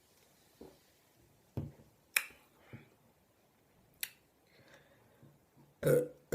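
A few sharp clicks and soft knocks, then near the end a short, louder low burp.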